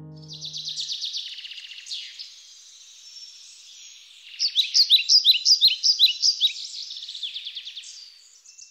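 Songbirds chirping and trilling: quick high trills, then from about four and a half seconds in a rapid, louder run of sharp chirps, several a second, fading near the end.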